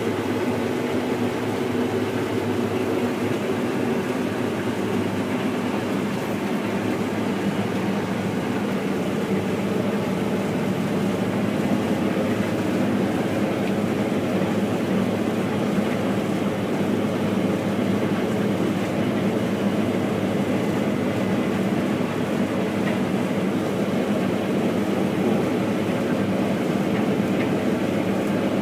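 Case IH 9230 Axial-Flow combine harvester running steadily while harvesting wheat: a continuous, even engine and machinery hum with no breaks or changes.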